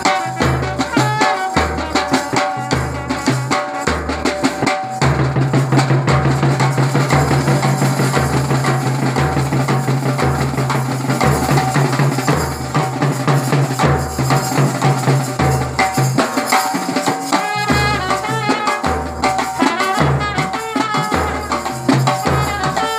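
Brass band music: a trumpet plays a melody over snare drums and a bass drum beating a steady rhythm of about two beats a second. About five seconds in, the trumpet stops and only the drums play. The trumpet comes back in for the last several seconds.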